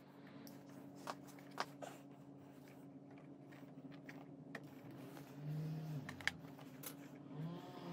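Wiring being handled at a scooter's handlebar switch housing: scattered small clicks and rattles from the connector, wires and pliers, the sharpest about six seconds in as the pliers work the wire.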